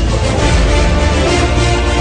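Background music with a steady beat and continuous bass.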